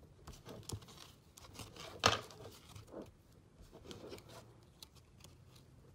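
Trading cards being handled and sorted by hand: soft slides and flicks of card stock against card, with one sharper click about two seconds in.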